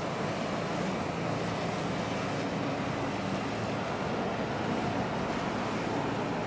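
Steady rush of wind on the microphone and choppy harbour water, with a faint low engine hum underneath.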